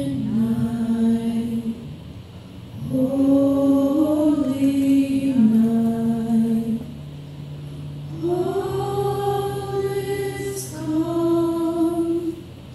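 Church choir singing a slow worship chorus in long held notes, in three phrases with short breaths between them, over a steady low note.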